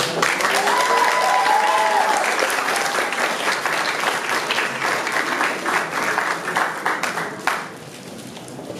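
Audience in a hall applauding, with a brief high cry from the crowd about a second in; the clapping dies away about seven and a half seconds in.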